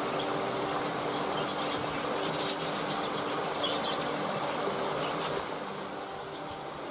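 Waterfall: a steady rush of falling water, with faint high chirps scattered through it. It dips slightly in level about five seconds in.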